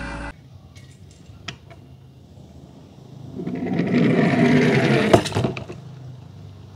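A die-cast toy car rolling down a white plastic slide, a rattling rumble of about two and a half seconds that starts about three seconds in, with a sharp knock near its end; a few small clicks before it.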